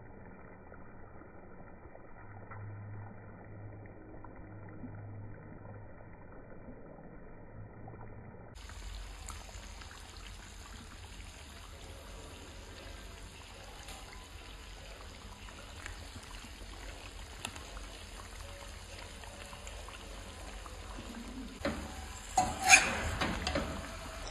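Meat curry frying in a steel kadai, a steady sizzle, with a few sharp knocks of a spatula against the pan near the end.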